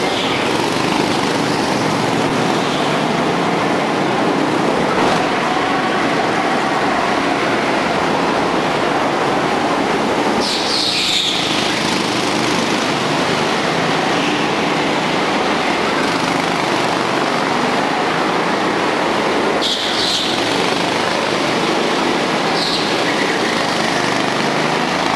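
Several go-kart engines running flat out in a race, a steady dense drone, with brief high tyre squeals about ten and twenty seconds in.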